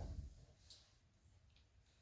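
Near silence: room tone with a soft low thump at the start and a couple of faint light clicks.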